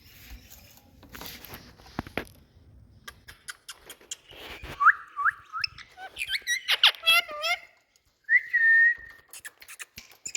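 Indian ringneck parakeet whistling: faint clicks, then a run of short rising whistles and chirpy calls, and one held whistle about eight seconds in.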